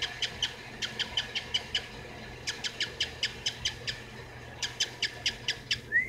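Cockatiel making runs of short, sharp kissing clicks, about five a second, in three bursts with short pauses between. These are his imitation of the smacking sounds people make to call a dog.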